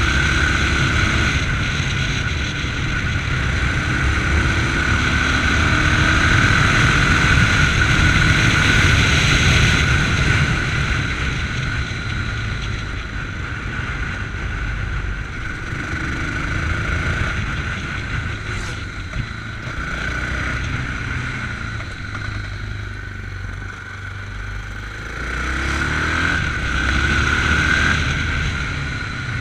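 Yamaha MT-03 motorcycle engine under way, heard close from the rider's chest. The revs rise and fall with the throttle, strongest in the first third and climbing again near the end.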